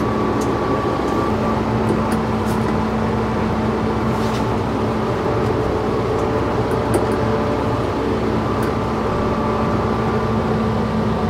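Kubota M4 tractor's diesel engine running steadily at low speed while the tractor reverses up to the rotary tiller to hitch it. A few faint clicks are heard over the engine.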